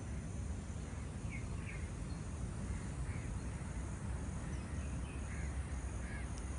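Crows cawing several times in short calls over a steady low rumble of outdoor ambience.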